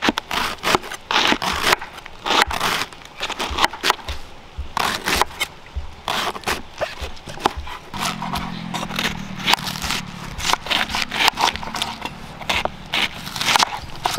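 Kitchen knife shredding a fresh cabbage on a wooden board: a quick, uneven run of crisp crunching cuts, each blade stroke through the leaves ending in a light knock on the board.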